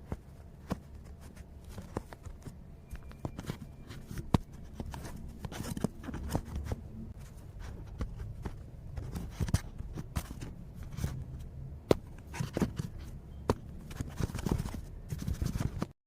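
Small objects being handled close to the microphone: irregular clicks, taps and light scrapes, several a second, over a low rumble, cutting off abruptly at the end.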